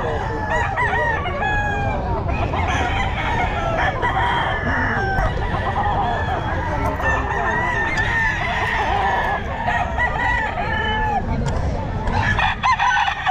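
Several gamefowl roosters crowing and clucking over one another, the calls overlapping continuously, with a louder burst of calls near the end.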